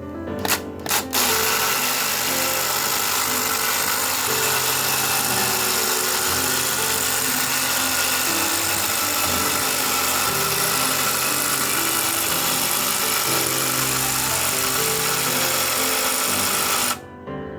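Steady harsh metalworking noise over background music, starting about a second in and cutting off suddenly near the end.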